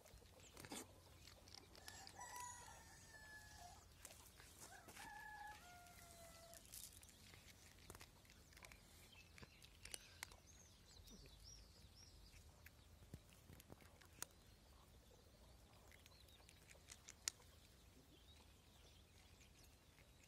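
A cat crunching dry kibble, heard as scattered sharp clicks, the loudest about three quarters of the way through. In the first seven seconds a rooster crows twice, each call dropping in pitch at the end, and faint bird chirps come about halfway through.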